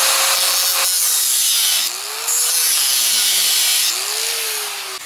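Angle grinder with a thin cutoff disc cutting through expanded steel mesh: a steady hiss of disc on metal over the motor's whine. The whine sags in pitch as the disc bites into the steel and climbs back as it frees up, twice.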